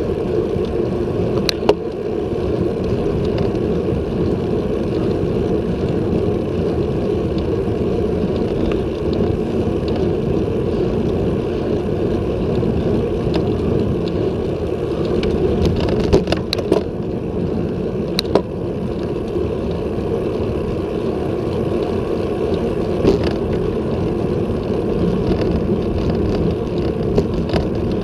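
Steady wind and road rumble picked up by a handlebar-mounted action camera on a road bike climbing at about 21 km/h, with a few sharp clicks and knocks scattered through.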